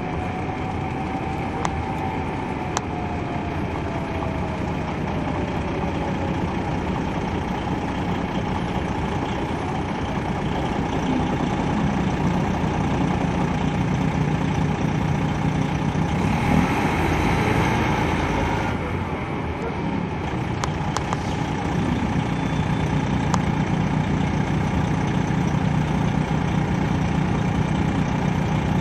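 On-board sound of a 2003 MCI D4500 coach bus, its Detroit Diesel Series 60 diesel engine running steadily. A pitched whine falls in the first few seconds, and there is a brief rush of noise a little over halfway through.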